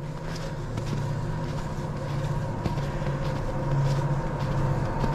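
Passing train: a steady low rumble with a faint steady whine above it.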